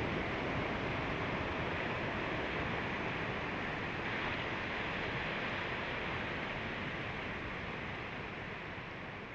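Steady rush of Atlantic surf breaking on the beach, fading gradually near the end.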